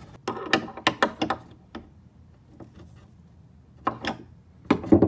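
Clicks and knocks of a screwdriver and metal eye-hook and turnbuckle hardware against a wooden shelf: a quick run of small clicks in the first second and a half, then a few louder knocks near the end.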